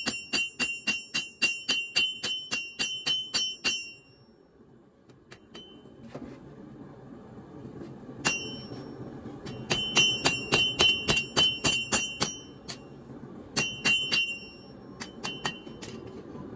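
Hammer blows on leaf-spring steel over an anvil: rapid, regular strikes, about three to four a second, each with a clear bell-like metallic ring. They stop about four seconds in. After a short pause, a steady low rushing noise comes up and the hammering resumes in short runs of ringing blows.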